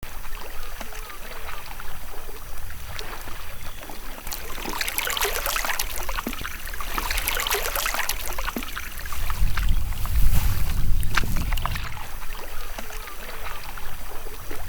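Kayak paddles dipping and splashing in the water, with dripping and sloshing, and a low rumble partway through.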